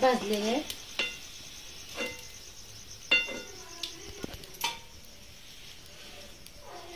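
Steel slotted spoon clinking against a wok and a perforated steel plate, about five sharp metallic taps a second or so apart, as fried pumpkin gharge are lifted out of the oil and set down to drain.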